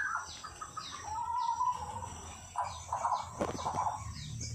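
White-rumped shama singing: varied whistled phrases interleaved with a run of quick, high, falling notes.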